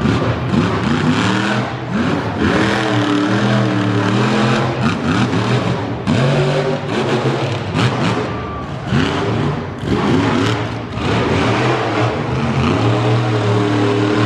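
Vendetta monster truck's engine revving hard in repeated throttle bursts, its pitch climbing and dropping again several times as the truck drives and turns on the dirt.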